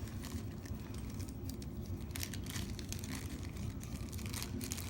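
Packaging crinkling and rustling in short, irregular crackles as small hardware pieces are handled and taken out of the box.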